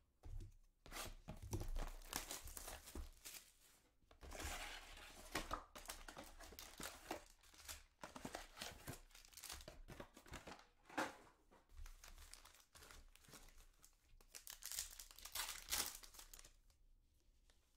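Plastic box wrap and foil trading-card packs crinkling and tearing as a hobby box of Panini Select soccer cards is unwrapped and its packs ripped open, in a run of rustles and rips that goes quiet near the end.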